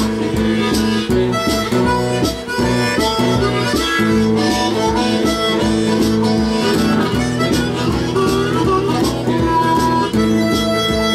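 Harmonica playing a lead line over strummed acoustic guitar, with a steady beat from an early electronic drum machine.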